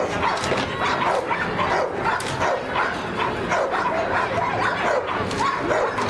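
Belgian Malinois barking in a rapid, steady series, a few barks a second, while working a decoy in a bite suit.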